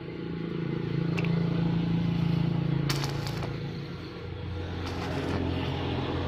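Brush cutter engine running steadily, its note shifting lower about four seconds in, with a few brief clatters.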